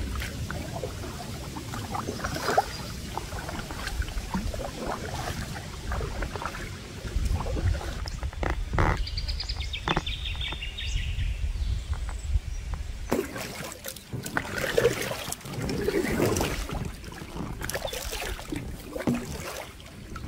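A kayak paddle dipping and pulling through calm river water beside an inflatable kayak, in an uneven series of splashes and drips.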